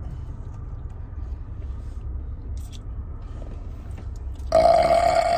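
Quiet chewing and biting of food over a low steady rumble inside a car. About four and a half seconds in comes a loud, long burp of about a second.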